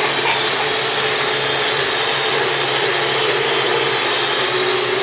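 Toy RC quadcopter's small electric propeller motors whirring steadily at a constant pitch as it flies.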